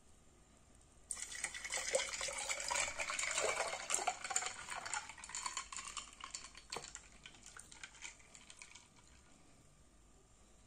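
Apple and carrot juice being poured into a glass jar: the pour starts suddenly about a second in and its pitch rises as the jar fills, with a few small clinks, tapering off near the end.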